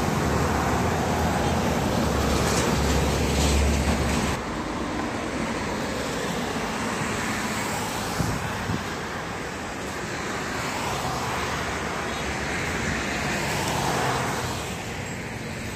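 Road traffic: heavy diesel trucks and cars passing on a multi-lane highway, a steady roar of engines and tyres. A deep engine rumble in the first four seconds cuts off suddenly, then the roar swells again near the end as another truck goes by.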